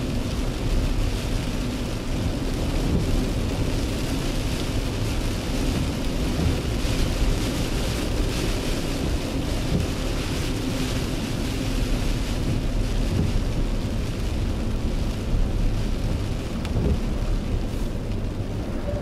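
Rain falling on a car's windshield and body, heard from inside the cabin over the steady low rumble of the car driving on a wet road.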